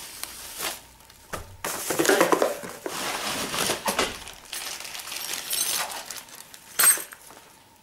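Bubble-wrapped scooter handlebar being pulled out of its cardboard box: plastic wrap crinkling and rustling against cardboard, with light metallic clinks and one sharp clink near the end.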